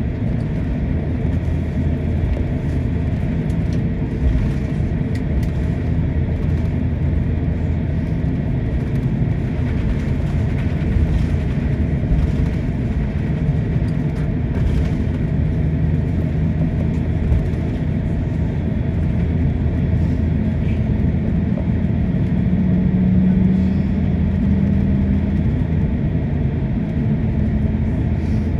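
Steady low rumble inside an airliner cabin as the aircraft taxis after landing, with a low hum that swells for a few seconds near the end.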